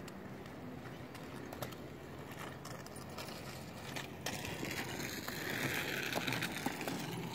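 Child's kick scooter rolling on a concrete walkway: a steady rumble of small wheels with scattered clicks, growing louder about five seconds in as it comes close.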